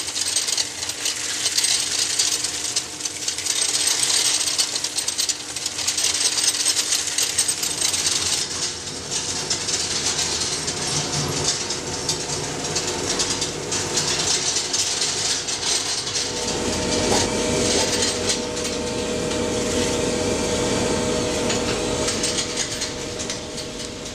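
Industrial crosscut paper shredder tearing paper between its steel cutter shafts: a dense, continuous crackling and rattling. Past the middle it turns into a steadier machine hum with a low rumble and a held tone.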